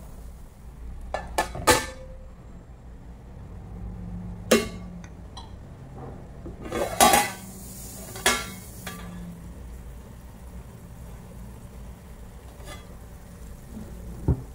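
Metal spoon clinking and scraping against a frying pan while stirring tomatoes, then a metal lid clattering as it is set on the pan about seven to eight seconds in. A few sharp clinks stand apart, with a steady low hum underneath.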